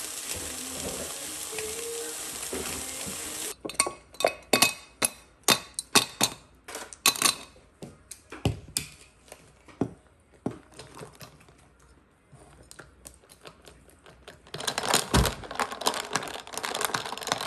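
Spam slices sizzling steadily in a stainless steel pan. After a cut, ice cubes clink sharply against a double-walled glass, many separate clinks that thin out. Near the end a metal straw stirs the iced coffee, ice rattling against the glass.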